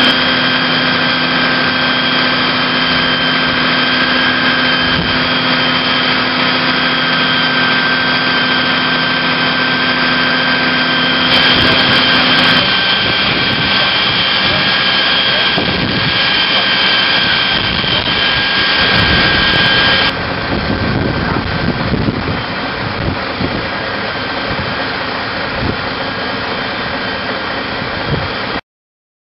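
Loud, steady drone of firefighting machinery running, with a constant high whine over it. The sound changes abruptly about twelve and twenty seconds in, and cuts off just before the end.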